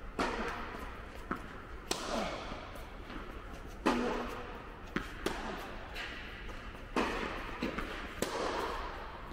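Tennis rally: racket strings striking the ball and the ball bouncing on the court, a sharp hit every second or two, each echoing through a large indoor tennis hall.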